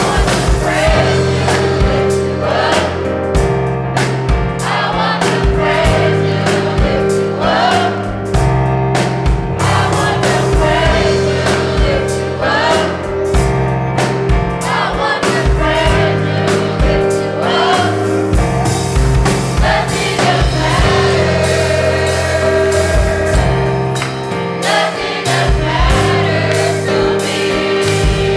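Gospel choir singing over a live band with bass, keyboard and drums.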